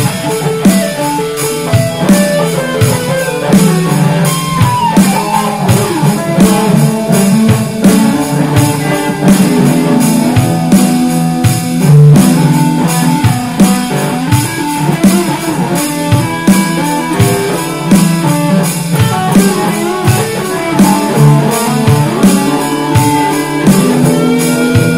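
Fender Telecaster electric guitar picking out a melody over a steady beat.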